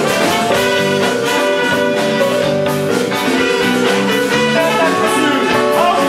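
A live band's horn section, saxophones, trumpets and trombone, playing a passage of held notes in harmony over electric bass and drums.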